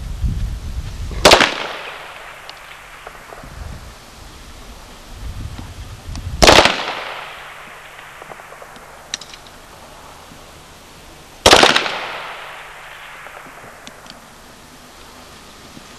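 Three rifle shots fired from the prone position about five seconds apart, each a sharp crack with a long echoing tail.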